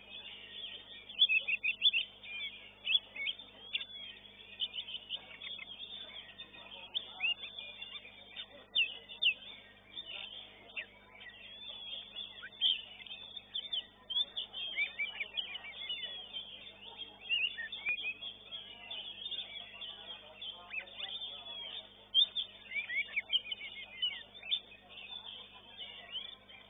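Oriental magpie-robin (kacer) singing: a fast, unbroken stream of short chirps and whistled notes, many sliding up or down in pitch.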